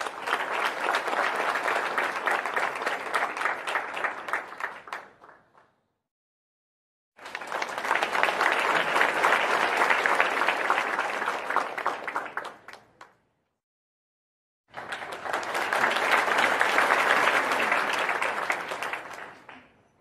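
Three separate recordings of crowd applause, many hands clapping densely, each lasting about five to six seconds and fading out, with a second or two of dead silence between them.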